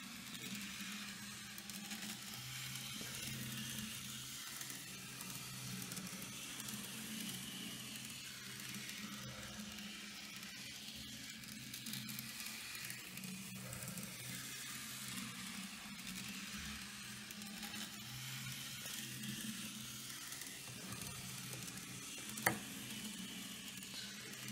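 Z-scale model tram on a Rokuhan Shorty motorised chassis running around the track: a steady small-motor hum under a fine hiss of wheels on rail. One sharp click near the end.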